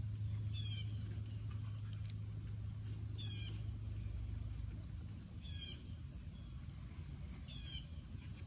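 A short, high, mewing animal call, most likely a bird, repeated about every two and a half seconds, over a steady low rumble.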